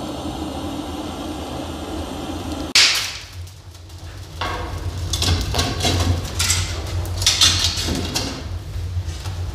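Portable gas-cartridge blowtorch burning with a steady hiss as it lights paper and kindling, cut off by a loud sharp knock about three seconds in. From about the middle on comes a run of irregular sharp cracks and knocks.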